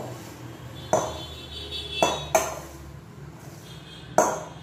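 A metal spoon clinking against a stainless steel mixing bowl while stirring a dry oat-flour mix: four sharp clinks, the bowl ringing briefly after some of them.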